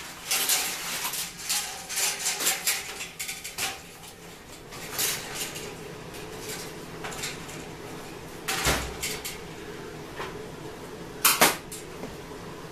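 Hand tools and wires being handled on the sheet-metal housing of a fluorescent light fixture. A run of small clicks and rattles fills the first few seconds. A dull thump comes about two-thirds of the way through, and a single sharp clack near the end.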